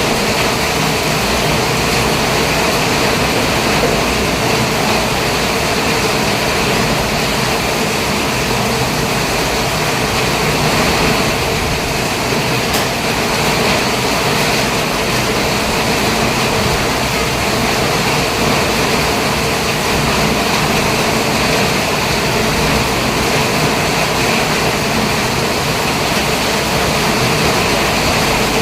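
Steady engine and road noise of a small vehicle driving.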